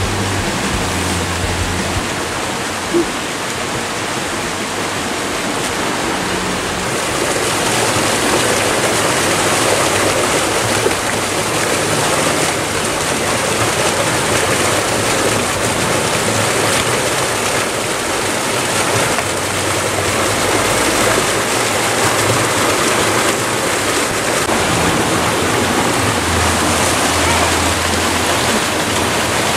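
Shallow rocky river rushing over stones: a steady hiss of fast, broken water with no let-up. One brief knock about three seconds in.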